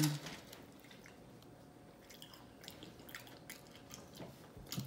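A person chewing a mouthful of burrito close to the microphone: faint, wet, scattered mouth clicks and squelches.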